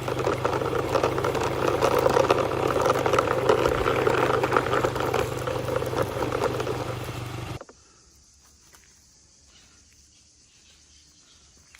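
Motorbike engine sound running steadily with a crackling rattle, cutting off abruptly about seven and a half seconds in, played as a toy police motorbike is pushed along.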